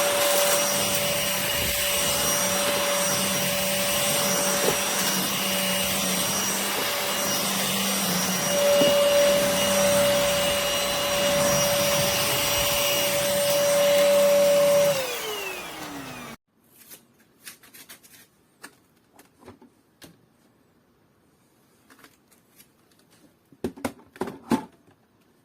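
Cordless stick vacuum running with a steady motor whine over a rush of suction air, then switched off about 15 seconds in, its whine falling in pitch as the motor spins down. Afterwards a few light clicks and taps.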